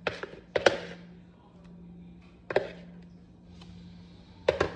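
A spoon knocking against the pan as spoonfuls of spinach, cream cheese and pepper filling go into the cream sauce: four short clinks, at the start, about half a second in, midway and near the end, over a low steady hum.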